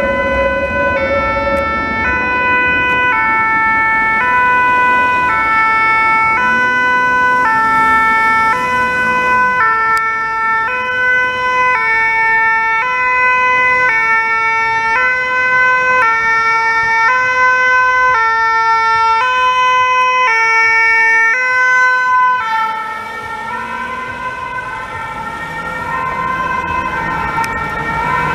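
Emergency vehicle's two-tone siren, alternating steadily between a high and a low note, with road traffic underneath. Near the end it turns quieter and less distinct.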